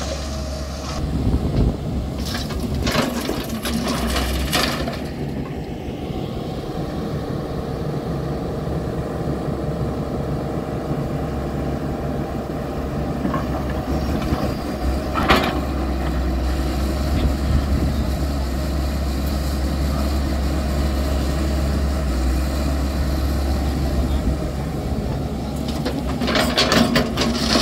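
Hyundai 210 crawler excavator's diesel engine running steadily while it works, with bursts of clatter from earth and stones. The loudest clatter comes near the end, as a bucketful of earth is dumped into the tipper truck's steel body.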